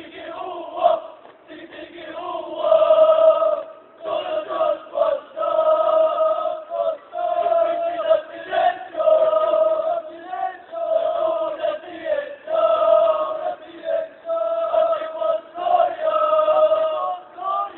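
Scouts' drill chant: many voices in unison calling out short, held phrases, with brief breaks between them.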